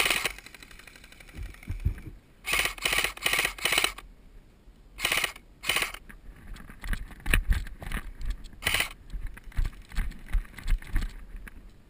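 Airsoft electric gun firing in short automatic bursts of rapid clicking shots, about four bursts, with dull thumps between them later on.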